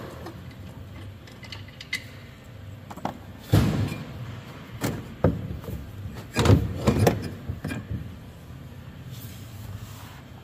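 Knocks, clunks and scraping as a Thermo King condenser fan motor is worked loose and lifted out of its metal fan shroud. The loudest knocks come about three and a half and six and a half seconds in.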